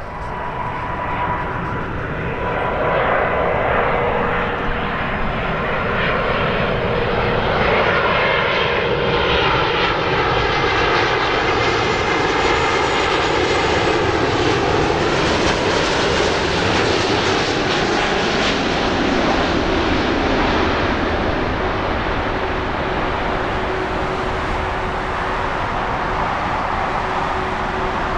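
Airbus A330's twin jet engines on landing approach, passing low overhead: the jet noise builds over the first few seconds, is loudest in the middle with a whine sliding down in pitch as the airliner goes by, then settles to a steady rumble as it descends to the runway.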